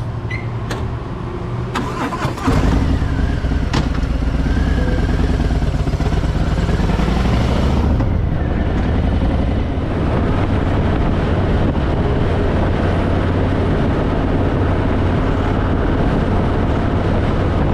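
Harley-Davidson Fat Boy V-twin engine idling, then pulling away about two and a half seconds in, rising in pitch as it accelerates for several seconds before settling into a steady run.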